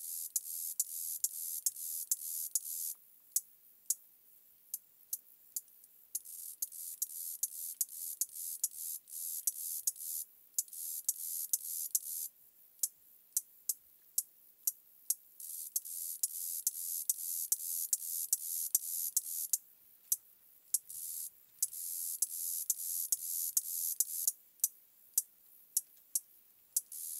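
A beetle chirping: a high-pitched buzz in runs of a few seconds broken by short pauses, with sharp clicks about twice a second throughout.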